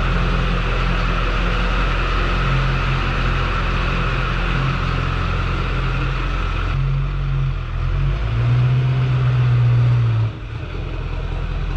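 LB7 Duramax 6.6-litre V8 turbodiesel pickup running steadily as it backs out and drives away, with a higher whine that stops about seven seconds in.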